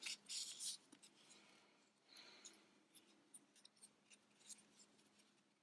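Faint rustling and scratching of yarn being drawn through crocheted fabric with a yarn needle: a cluster of rustles in the first second, another about two seconds in, then scattered small scratches.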